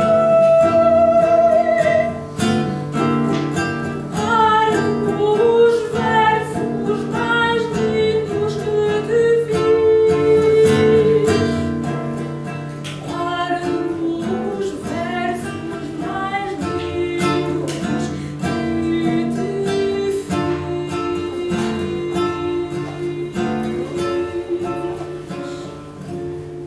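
Female classical singer performing an art song to classical guitar accompaniment, the guitar plucking steady broken chords under the voice. It opens on a long held sung note, and the music grows softer near the end.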